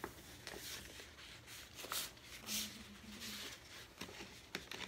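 Faint rustling and light taps of a cardboard gift box being turned over in the hands, with a short low hum near the middle.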